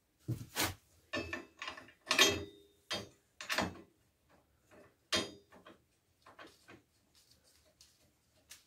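Metal clanks and clicks of a steel winch mounting plate and its bolts knocking against the vehicle's frame as they are fitted by hand. Several sharp knocks, some with a short metallic ring, come in the first few seconds, then fainter taps.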